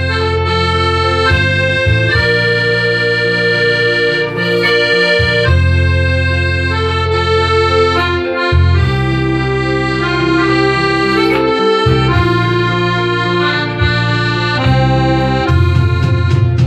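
Hohner piano accordion playing a tune: a melody of held notes that change every half second or so, over sustained bass notes.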